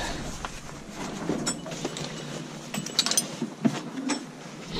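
Handling noise close to the microphone: light rustling with scattered sharp clicks and clinks, several in a cluster about three seconds in.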